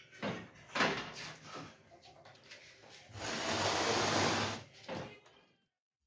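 A long wooden board scraped across fresh cement plaster on a wall. There are a few short scrapes, then one longer, even scrape of about a second and a half a little after the middle, and then the sound stops.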